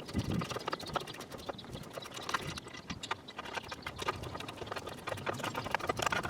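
Many quick, irregular clicks and knocks of metal parts being handled: the old and new front wheel bearing hub assemblies.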